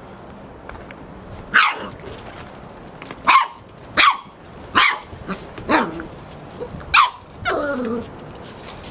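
Puppy barking: about six short, high, sharp barks, each dropping quickly in pitch, then a longer, lower call near the end.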